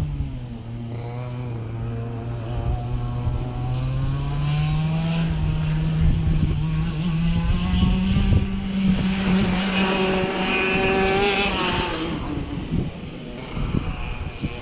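Race car engine passing along a track straight. The engine note drops just at the start, then climbs steadily as the car comes nearer, is loudest about ten seconds in, and fades away near the end.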